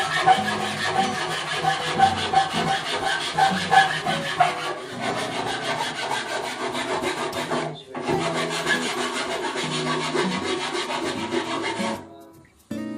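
A hand tool scraped rapidly back and forth along the edge of a white board, a continuous rasping with a brief pause about two-thirds of the way through; it stops near the end.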